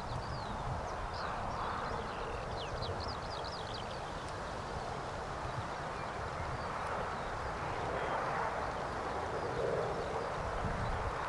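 Wind buffeting the microphone over a steady distant rumble, with small birds chirping over the first few seconds.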